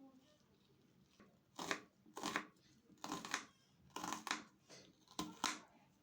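A knife chopping vegetables on a cutting board: about eight sharp cuts, many in close pairs, starting about a second and a half in.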